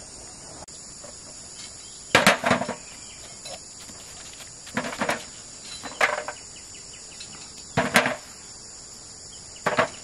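Steady high chirring of insects, broken by five sharp knocks at irregular intervals, each a quick cluster of two or three strikes, the loudest near the end.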